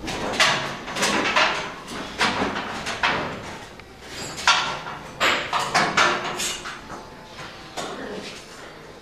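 Irregular scraping, rattling and knocking of metal as the band wheels, saw band and hinged wheel covers of a band sawmill are handled by hand, in bursts about a second apart.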